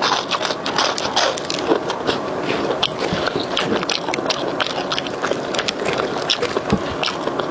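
Close-miked chewing of a crispy fried snack stick, with dense crunching crackles throughout.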